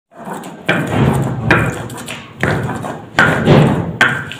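Hand grinding on a flat stone slab (sil-batta): five sharp knocks about a second apart, each running into a fading rubbing, crunching stroke.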